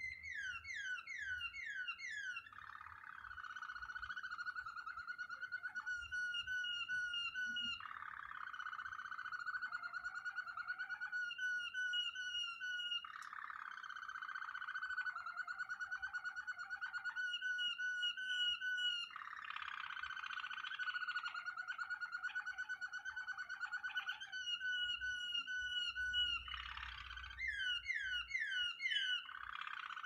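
Domestic canary singing continuously. It switches between runs of quick falling whistles, about a second in and again near the end, and long rolling trills held for several seconds each.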